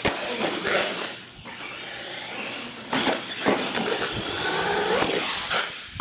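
R/C monster truck's motor and drivetrain whining, the pitch rising and falling as it is throttled while it drives and turns on a concrete floor, with two knocks about halfway through.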